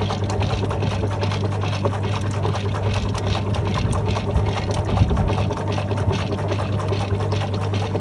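GE Profile top-loading washing machine agitating a load of towels: a steady motor hum under the churning and sloshing of water.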